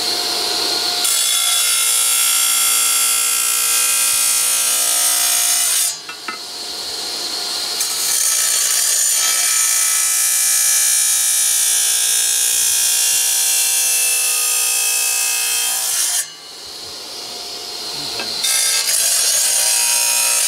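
Electric sliding-table wet tile saw running, its diamond blade grinding through a tile in three passes: loud grinding from about a second in, again from about 8 s to 16 s, and again near the end. The motor hums steadily in the quieter gaps between passes, where the blade spins free.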